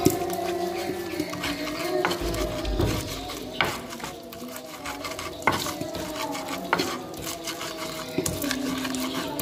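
A stone pestle grinds and crushes chilies in a shallow clay mortar (Indonesian ulekan and cobek), making a steady gritty scraping. Four or so sharp knocks of stone on clay break it up.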